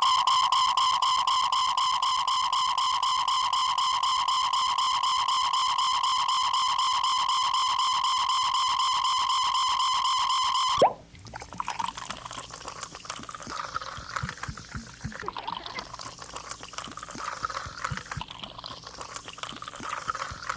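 A loud, steady buzzing tone with overtones, pulsing rapidly, cuts off abruptly about eleven seconds in. It gives way to quieter splashing, trickling water sounds scattered with small clicks.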